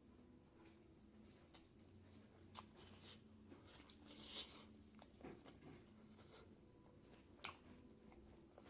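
Close-miked mouth sounds of a person eating pork with bamboo shoots curry: soft chewing with a few sharp wet clicks and smacks.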